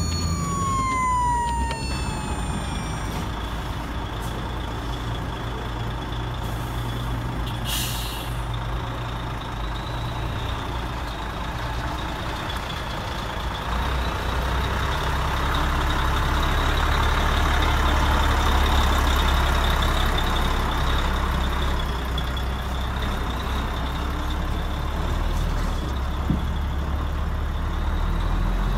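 A toy ambulance siren wails briefly, then cuts off about two seconds in. After that a model THW MAN Kat 6x6 RC truck runs steadily, a low engine hum with a thin high whine over it.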